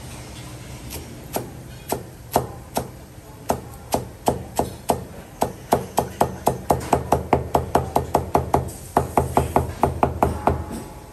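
Chinese cleaver chopping green herbs on a thick plastic chopping block, each stroke a sharp knock of the blade on the board. The strokes come slowly at first, then quicken to an even rhythm of about four a second, with a brief pause near the end.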